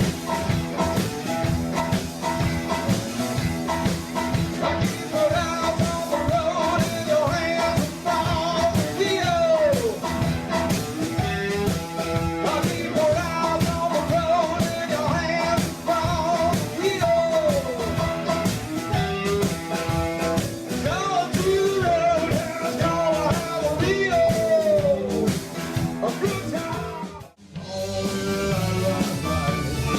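Rock music: a band with a melodic lead line that slides down in pitch several times. About 27 seconds in it breaks off for an instant, then carries on with a heavier low end.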